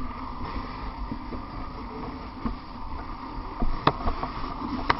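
Steady rushing, rumbling noise of firefighting work inside a burned structure, broken by a few sharp knocks near the end.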